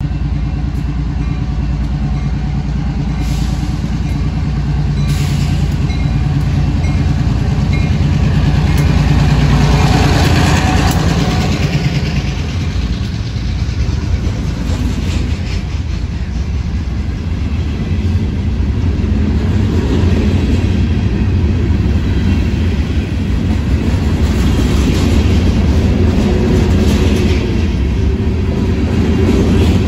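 NWP freight train passing close by: the diesel locomotive's engine drone grows loudest about ten seconds in as it goes past. It is followed by the steady low rumble and wheel noise of covered hopper cars rolling by.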